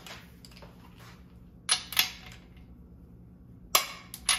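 Click-type torque wrench releasing on Jeep 4.0 main bearing cap bolts: sharp metallic clicks in two pairs, about 1.7 s in and again near the end, each marking a bolt reaching its torque setting.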